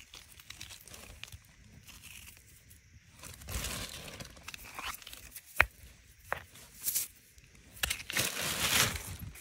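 Rocks being handled and pried out of wet dirt by hand: scraping and crunching of soil and gravel, with a single sharp knock a little past halfway and longer scrapes near the middle and near the end.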